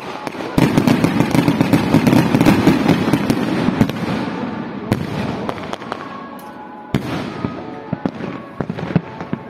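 Fireworks going off: a sudden dense barrage of rapid bangs and crackles starts about half a second in, then thins out into scattered single bangs toward the end. Music plays faintly underneath.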